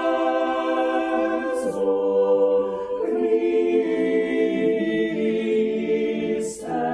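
Unaccompanied choir singing long, held notes, with the notes changing about a second and a half in and again at three seconds.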